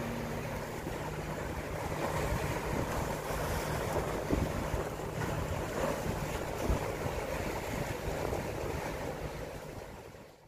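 Wind buffeting the microphone over choppy harbor water splashing, with the low steady hum of a fishing boat's engine as the boat motors past close by. The sound fades out near the end.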